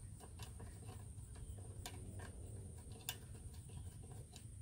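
Faint, scattered clicks of small engine parts being handled as a gasket is lined up on a lawnmower carburetor, two sharper ticks about two and three seconds in, over a low steady hum.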